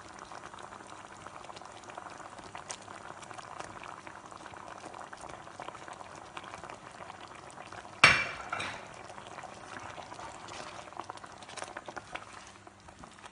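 Curry gravy bubbling at the boil in a pan, a steady soft bubbling and crackling. About eight seconds in there is one sharp knock with a short ring.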